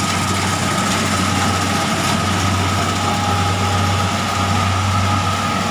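Engine of a rice-harvesting machine running steadily: an even low hum with a constant high whine over it.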